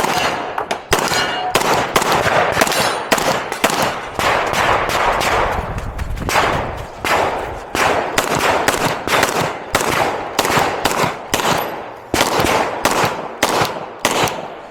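9mm Glock 34 pistol fired in rapid strings of shots, with short pauses between strings and each shot ringing out briefly.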